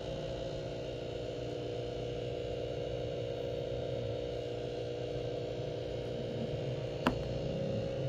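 A steady hum of even tones, with one short sharp click about seven seconds in.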